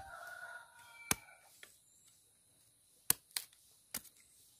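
Machete blade chopping into a banana bunch's stalk to cut the hands of bananas free: a sharp chop about a second in, then three more close together near the end.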